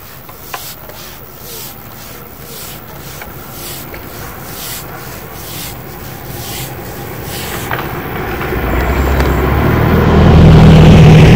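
A carbon fishing pole being shipped back, its sections rubbing and sliding over a pole roller in repeated strokes. Over the last few seconds a loud low drone swells up and becomes the loudest sound.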